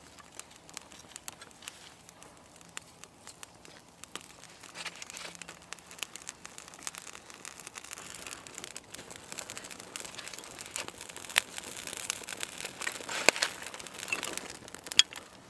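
Dry grass tinder bundle and split wooden kindling crackling as they catch fire, the crackles sparse at first and growing denser and louder in the second half as the flames take hold.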